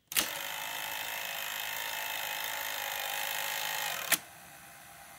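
Sanyo VTC-8200 V-Cord II video tape player loading a tape: a click as it engages, then about four seconds of really loud mechanical whirring as the mechanism wraps the tape around the head drum. A second sharp click follows, after which the machine runs quietly. The owner suspects the mechanism needs more lubrication.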